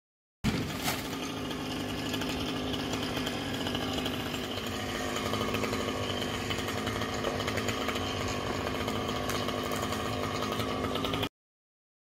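Chainsaw running steadily at high revs. It cuts in and out abruptly, with a sharp knock just after it starts.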